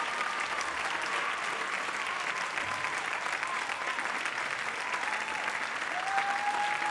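Audience applauding, with a few whistles over it, one held for about a second near the end.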